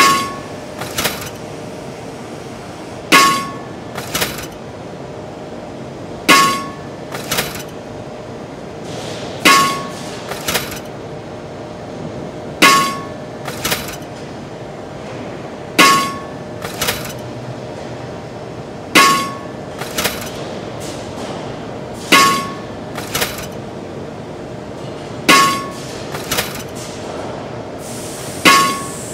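Hammer striking metal in a steady rhythm: a loud ringing clang about every three seconds, each followed about a second later by a softer knock, over a steady machine hum.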